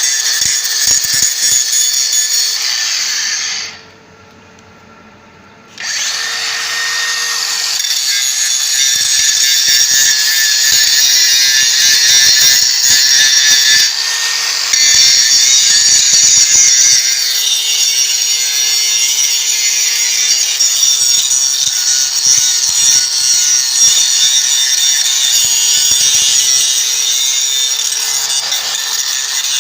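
DeWalt DCG414 cordless 125 mm angle grinder grinding down steel weld seams: a steady, harsh grinding over the motor's whine. About four seconds in the disc comes off the work for a couple of seconds and only the free-spinning whine is heard, then grinding resumes.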